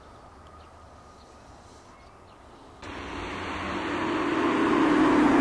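Faint steady background noise, then about three seconds in a sudden switch to the loud, swelling rush of a passing motor vehicle.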